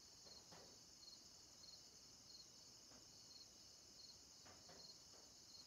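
Faint chorus of night insects: a steady high trill with a short chirp repeating about every two-thirds of a second.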